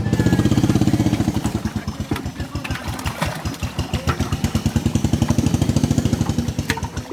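Small single-cylinder engine running steadily at idle, with a fast, even chugging beat.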